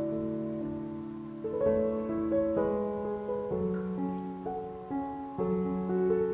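Background piano music: a slow melody of held notes that change about once or twice a second.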